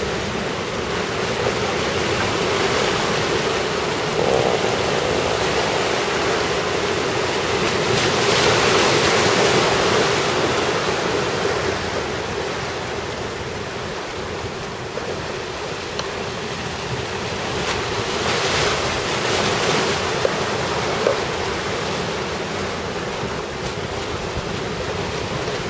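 Heavy surf and breaking waves on a rough sea stirred up by a typhoon's outer winds, with strong wind buffeting the microphone. The wash swells louder about a third of the way in and again about three quarters through.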